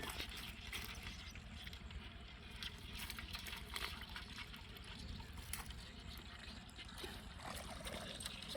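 Faint water trickling and light splashing with scattered small knocks, over a steady low rumble.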